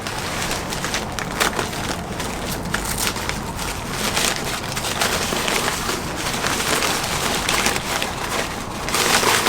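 Paper packaging crinkling and rustling as it is handled and unwrapped, a dense run of small crackles.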